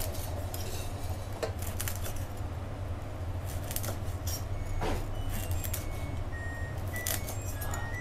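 Knife crunching through the crisp crackling of fried pork belly and knocking on a wooden chopping board: irregular crunches and taps over a steady low hum.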